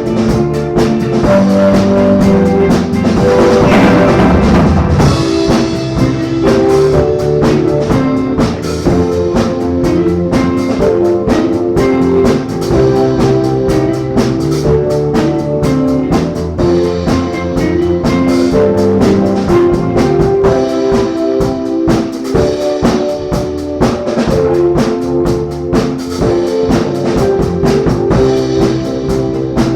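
A live band playing a groove in rehearsal: a drum kit keeps a steady beat under held chords and guitar.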